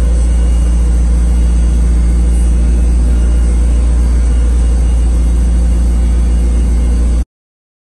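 McLaren 765LT's twin-turbocharged 4.0-litre V8 idling steadily with a deep, even drone, cutting off abruptly about seven seconds in.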